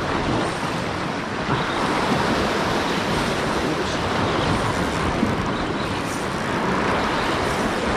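Steady rush of sea surf washing against a rocky shore, with wind on the microphone.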